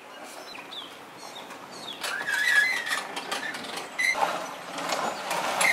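Boat trailer carrying a drift boat being backed down a rough, rocky bank to the water's edge. There are knocks and clatter, a wavering squeal about two seconds in, and shorter squeaks about four seconds in and again at the end.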